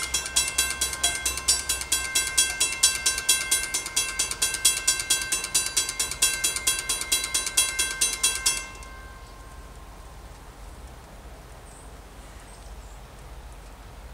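Railroad grade-crossing bell ringing in a steady rapid rhythm, about three to four strikes a second, then cutting off suddenly about two-thirds of the way in as the crossing gate arm finishes lowering, a sign that the crossing is activated for an approaching train.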